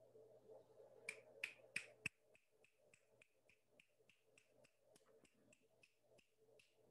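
A run of sharp clicks at roughly three a second over a faint low hum. The first four, a little over a second in, are the loudest, and a steady series of fainter clicks follows, stopping just before the end.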